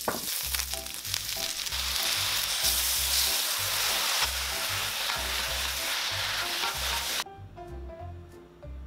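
Chicken and vegetables sizzling as they are stir-fried in a hot wok, over background music with a bass beat. The sizzling cuts off suddenly about seven seconds in, leaving only the music.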